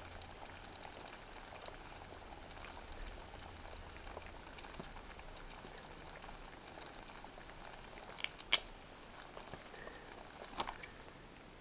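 Shorted lead-acid car battery boiling: a faint, steady fizzing with small crackles as the electrolyte gasses under a dead short through a red-hot wire across the terminals. A few sharper pops come late on.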